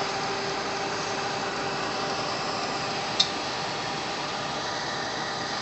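Sharper Image Super Wave Oven's convection fan running steadily with a faint hum, cooking oil-coated fries. A single short sharp click sounds about three seconds in.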